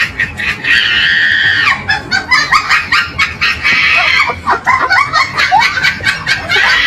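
High-pitched squeals and shrieks, with bursts of laughter in between.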